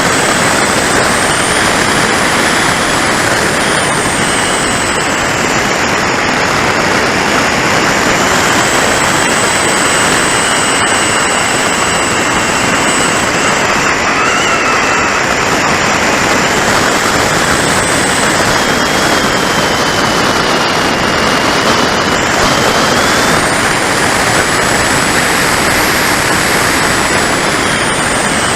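Steady rush of airflow and wind over the onboard camera of an RC electric warmliner glider in flight, with a thin high whine that rises and falls in pitch over a few seconds at a time.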